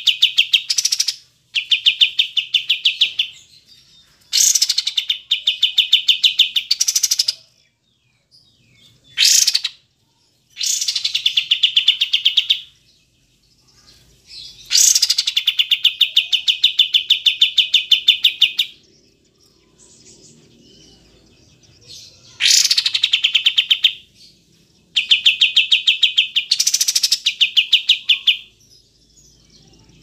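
Kapas tembak bulbul singing: about eight loud phrases of very fast repeated notes, each from under a second to about four seconds long, with short pauses between.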